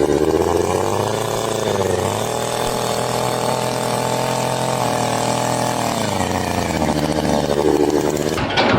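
An engine running steadily, revving up about two seconds in, holding the higher speed, then dropping back about six seconds in.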